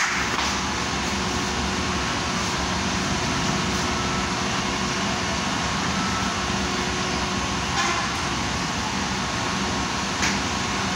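Steady loud rushing noise with a low hum underneath, broken by three brief knocks: one at the start, one about eight seconds in and one near the end.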